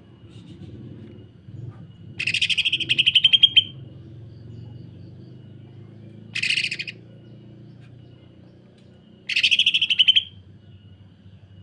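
A cucak ijo (green leafbird) singing three bursts of harsh, tightly packed rapid notes, like a sewing machine. The first burst is the longest, the second is short, and the third comes near the end.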